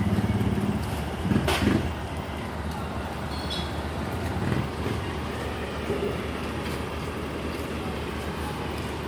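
Motor vehicle engine running close by with a low, even hum that drops away about a second in. A brief louder rush follows about a second and a half in, then a steady low traffic hum.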